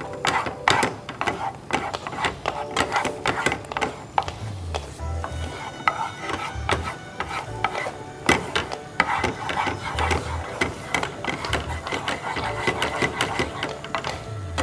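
Wooden spatula scraping and stirring sugar in a nonstick frying pan in quick, repeated strokes as the sugar cooks down to a dark caramel. Faint background music runs underneath.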